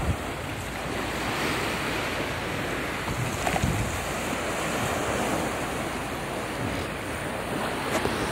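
Small waves breaking and washing up a sandy beach in a steady surf noise, with wind gusting on the microphone, most strongly about three and a half seconds in.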